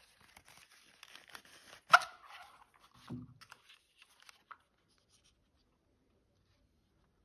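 A Leningrad 7 light meter being handled and slid out of its leather case. There is rustling and scraping of leather and plastic, a sharp click about two seconds in, and a dull knock about a second later. The sounds die away about five seconds in.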